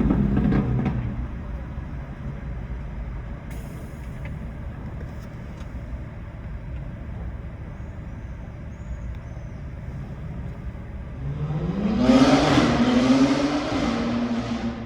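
Steady low road rumble of a car driving in traffic. About eleven seconds in, a vehicle's engine grows loud, accelerating with its note rising in pitch, then dies away near the end.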